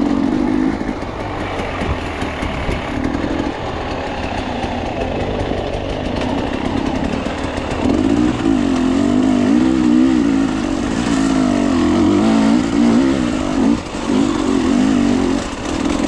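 Dirt bike engine running under the rider as it picks its way along a rocky trail, the revs wavering up and down with throttle. The engine gets louder and stays higher from about eight seconds in, with a short drop in revs near the end.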